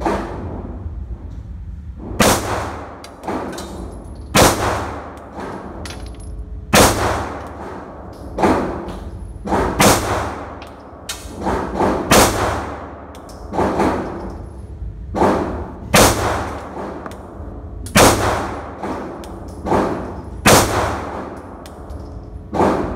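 Glock G43X 9mm pistol fired in a slow string of single shots, roughly one every one to two seconds, some louder than others, each shot ringing off the walls of an indoor range.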